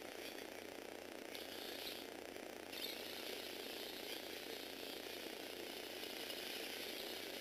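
Lego Technic motorised car's electric motor and plastic gear train running, a faint steady rattling whir that gets a little louder about three seconds in.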